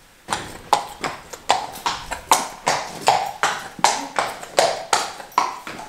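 A horse's hooves clip-clopping at a walk on a hard brick stable floor: even, sharp strikes about two and a half a second, each ringing briefly, starting shortly after the beginning.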